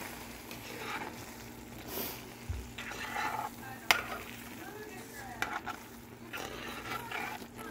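Sausages sizzling in a frying pan while they are stirred about, with one sharp clack a little before the middle.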